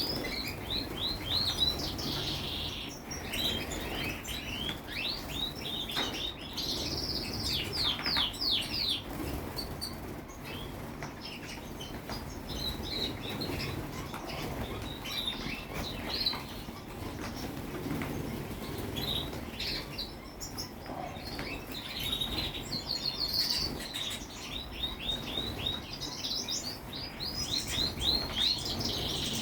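Small birds chirping, with many quick runs of short falling notes that recur throughout, several overlapping at times.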